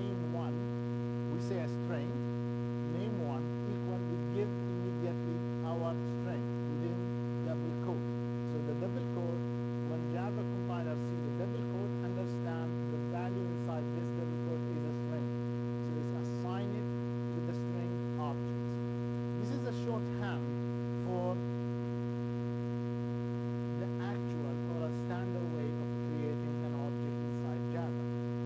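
Steady electrical mains hum, one low buzzing tone with a stack of higher overtones, holding unchanged throughout.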